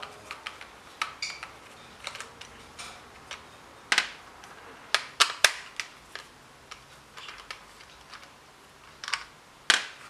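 Scattered sharp clicks and taps of a BMW E90 door lock actuator's plastic housing being handled and worked apart with a screwdriver, with a few louder clicks among many small ticks.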